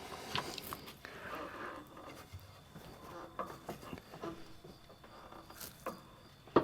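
Faint scraping and rubbing with scattered light clicks, from hand work on a tractor mower blade, with two sharper taps near the end.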